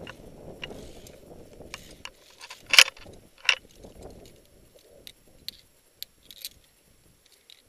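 Metal climbing gear clinking, probably carabiners against the steel safety cable, with two loud sharp clinks about three seconds in and a few lighter ticks after. Scuffing and rustling of movement on the rock in the first two seconds.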